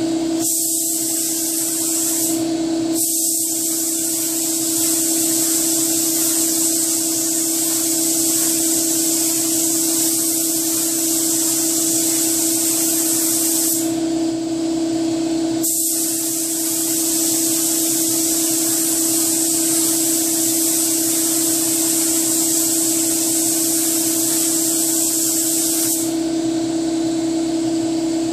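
Compressed-air spray gun hissing as it sprays epoxy primer onto a car hood, in three trigger pulls: a short one of about two seconds, then two long passes of about ten seconds each, with brief breaks between. The gun is acting up a little. A steady low hum runs underneath.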